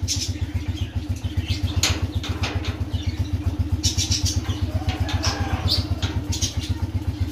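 Motorcycle engine idling steadily, with a few sharp metal clanks from a steel gate's latch being worked open.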